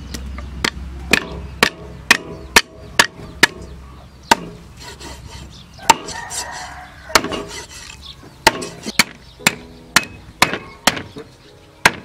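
Meat cleaver chopping skinned snake into pieces on a thick wooden chopping block: sharp knocks about two a second, a pause of a couple of seconds midway with some rustling, then the chopping resumes.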